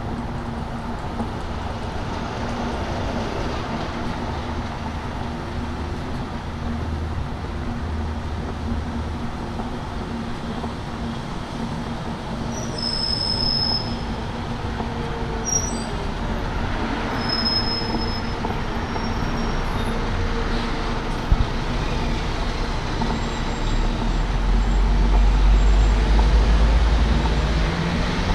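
City street traffic passing, with a few short high-pitched squeals in the middle and a heavy vehicle rumbling past near the end.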